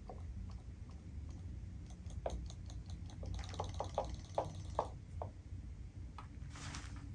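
Battery-powered robotic fish toys swimming in a plastic tub of water: scattered small plastic ticks, with a quick run of about six louder clicks around the middle, over a low steady hum.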